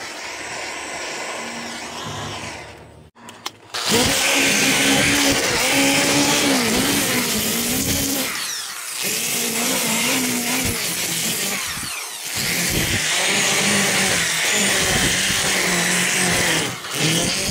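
A propane torch burning steadily, then from about four seconds in a drill spinning a Sand-o-flex flap sander against a scorched carved wood bear. The motor's pitch wavers with the load, and it stops and restarts a few times.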